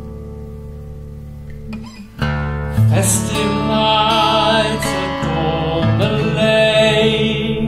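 Acoustic guitar chord ringing out and fading, then about two seconds in the guitar picking starts again with a flute melody, played with vibrato, over it.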